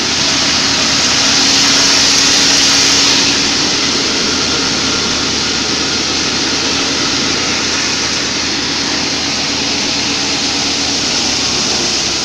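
Seven-fan paddy thresher running: a loud, steady rushing machine noise with a faint low hum, loudest for the first three seconds or so.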